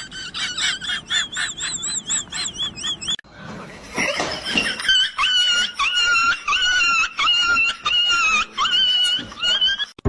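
Rapid, repeated high-pitched animal squeals, in two runs with a brief break about three seconds in.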